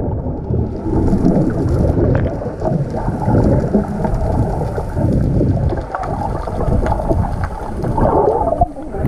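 Muffled rumble and gurgle of seawater moving around a GoPro Hero 5 held underwater, with small clicks and bubbling sounds scattered through it.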